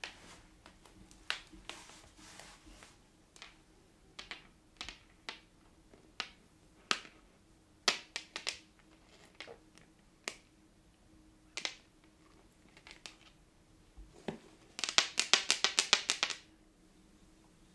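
Long claw-shaped artificial fingernails tapping and clicking on a wooden floor: scattered single taps, then a quick run of about ten taps near the end.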